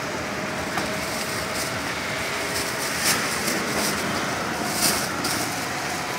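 Steady hiss and rumble of a street-stall wok on a gas burner, the corn in it frying, with two brief sharper sounds about three and five seconds in.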